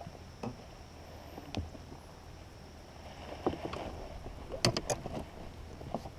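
Scattered knocks and clatters of handling in a small fishing boat, with a quick run of louder knocks a little after the middle, over a steady high hiss.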